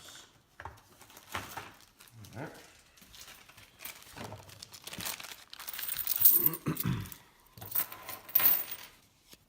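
Silver dimes clinking and clicking against each other as they are handled, with rustling of packaging between the clinks.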